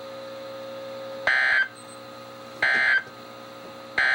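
EAS end-of-message data bursts on a NOAA Weather Radio broadcast: three short, loud digital squawks about a second and a half apart, marking the end of the warning. A low steady hum from the radio runs between them.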